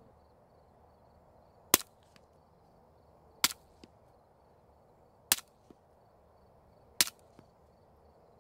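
STI 2011 9mm pistol with a CGS Group Kraken 9 suppressor firing subsonic 165-grain rounds: four sharp shots about 1.7 seconds apart, each followed a fraction of a second later by a faint tick.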